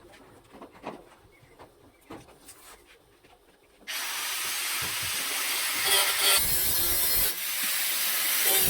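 Electric arc welding: after a few faint clicks, a loud, steady crackling hiss starts abruptly about four seconds in and continues.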